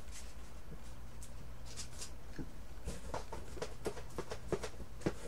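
Scattered light clicks and rustles as signed photo prints are handled, over a steady low hum.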